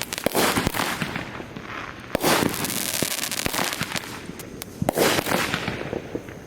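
Fireworks going off: a series of sharp bangs with crackling between them, the strongest a little over 2 s in and around 5 s in.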